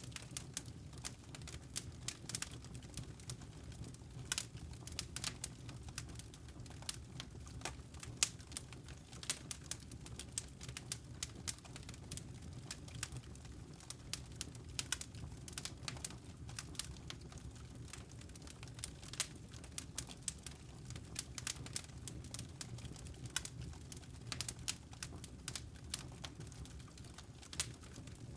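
Fire crackling: irregular sharp pops and snaps, several a second, over a low steady rumble of the flames.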